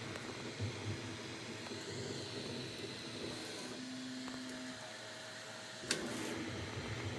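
Bambu Lab A1 3D printer running, its stepper motors and fans whirring steadily, with a brief steady motor hum about four seconds in and a sharp click near six seconds.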